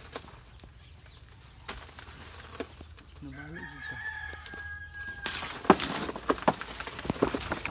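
A rooster crows once, a single long held call of about two seconds near the middle. After it comes a run of sharp clicks and knocks, the loudest just after the crow ends.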